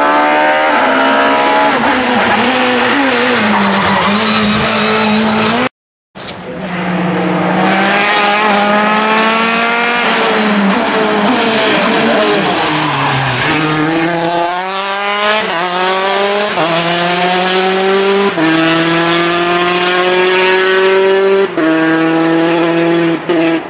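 Citroën DS3 rally car engine at full throttle, revs climbing and dropping through a run of gearshifts as it brakes and accelerates along the stage, with a brief cut about six seconds in. From the middle on it pulls away with a series of quick upshifts about every second and a half.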